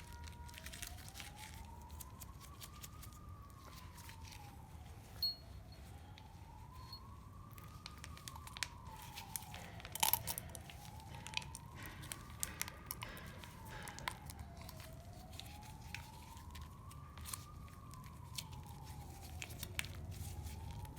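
An emergency-vehicle siren wailing slowly up and down in the background, about one rise and fall every five seconds. Over it come scattered crinkles and clicks of plastic and grease being handled, with the sharpest clicks about five and ten seconds in.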